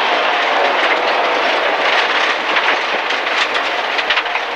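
Inside a Rally First MG ZR 1.4 driven hard on a gravel stage: the engine running at high revs under a loud wash of tyre and gravel noise. From about halfway there is a rapid clatter, typical of gravel thrown against the underbody and wheel arches.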